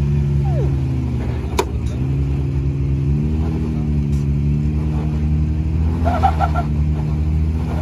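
Jeep Wrangler JL engine working under load as it crawls up a rock ledge, its revs rising and falling gently. There is one sharp knock about one and a half seconds in.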